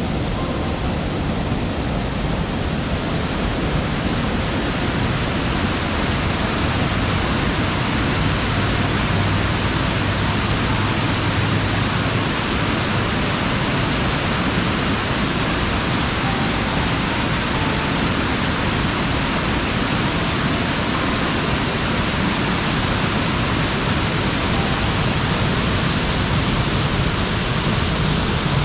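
Waterfall pouring: a steady, even rush of falling water that holds at the same level throughout.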